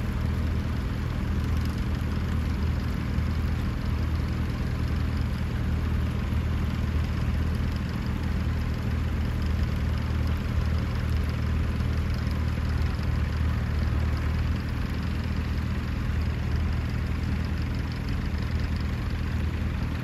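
Small vintage tractor engine idling steadily, holding an even note throughout.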